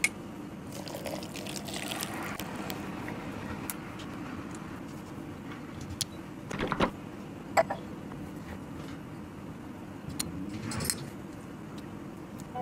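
Milk trickling from a tiny carton into a miniature glass beaker, then a few sharp clicks and taps as the small glassware is handled and set down.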